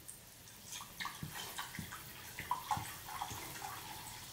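Seltzer water poured from a plastic bottle into a glass bowl, splashing unevenly, with a few deep glugs from the bottle about one to three seconds in.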